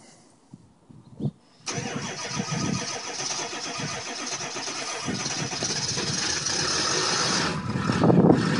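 Cold start of a 2002 Ford F-250 pickup's engine in freezing weather. A few light knocks come first, then about two seconds in the engine suddenly turns over and runs with a strong hiss. Near the end the sound drops lower and gets louder.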